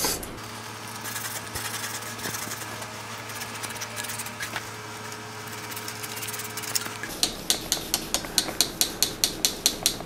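A steady low hum, then from about seven seconds in an even mechanical ticking, about three to four sharp clicks a second.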